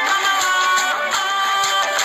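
Music playing: a held melody that slides between notes over a steady beat of about two strikes a second.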